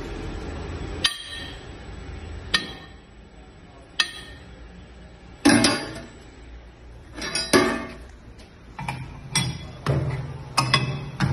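Steel adapters and a brake disc clinking and clanking as they are fitted onto a brake lathe's arbor, in sharp separate metallic knocks about one to two seconds apart, coming faster near the end as the arbor nut is tightened with a wrench.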